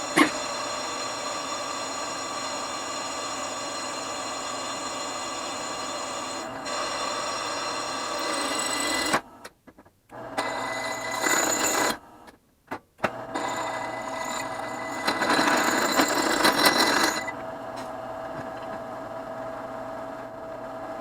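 Drill press running with a steady, ringing whine as a drill bit cuts into a brake rotor. The sound drops out briefly twice near the middle, and a louder, harsher cutting noise swells for about two seconds later on.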